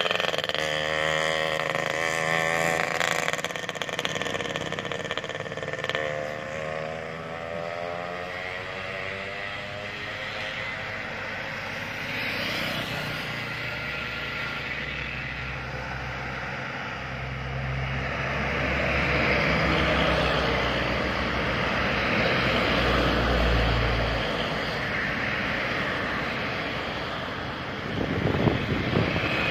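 Road traffic going by: vehicle engines passing, their pitch gliding as they go, with a heavy diesel engine running loudest about two-thirds of the way through.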